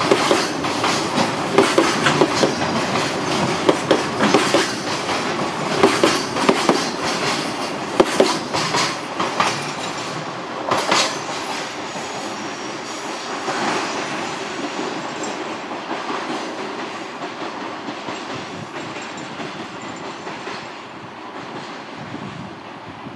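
Container wagons of a freight train rolling past, their wheels clicking sharply over the rail joints again and again. About halfway through the clicks thin out and the running noise fades steadily as the last wagons pull away.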